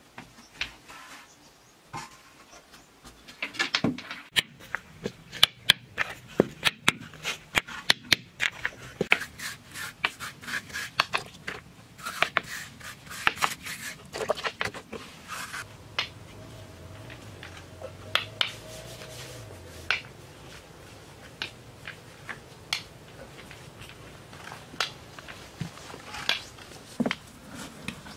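River stones clacking and knocking against each other as they are set down by hand one at a time, in quick irregular clicks that come thick for a while and then thin out.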